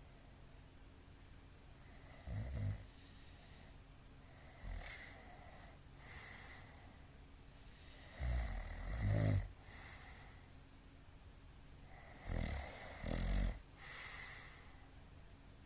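A middle-aged man snoring loudly in his sleep: three loud, rattling snores about four to six seconds apart, the last two each coming in two quick pulses, with fainter breaths between.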